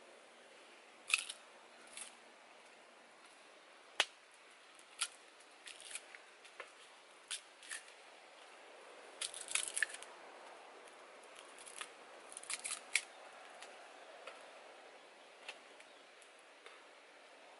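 A knife cutting and shaving a stick of sugar cane by hand: irregular sharp clicks and short scraping cuts, a few every couple of seconds, busiest about nine to ten seconds in.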